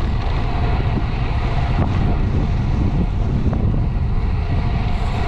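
Wind buffeting the microphone of a handlebar camera on a road bike descending at speed, a steady heavy rumble.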